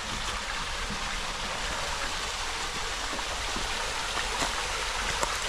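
Waterfall and creek water rushing steadily, a constant hiss of falling water with a few faint splashes.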